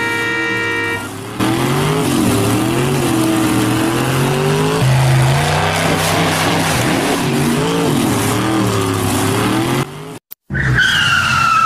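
A horn-like tone for about the first second, then a race-car engine sound revving up and down with tyre-skid noise for about eight seconds, cutting off suddenly, followed by a short falling squeal near the end. The motorless wooden cart cannot make an engine sound, so this is an added race-car sound effect.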